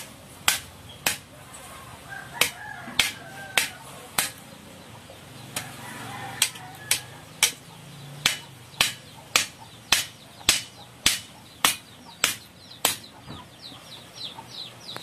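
Hammer striking metal: a string of about twenty sharp, ringing blows, settling into about two a second in the second half. A bird gives a run of quick chirps near the end.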